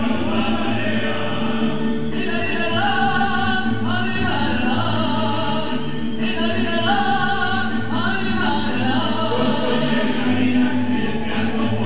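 Live mariachi ensemble of violins and guitars playing a son, with the musicians singing held, sustained lines over the strumming.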